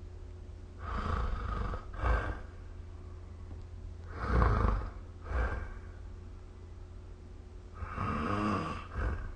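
A sleeping person snoring: three breaths about three and a half seconds apart, each a longer snore followed half a second later by a short one. The middle snore is the loudest, and the last, near the end, has a clearer pitch. A steady low hum lies underneath.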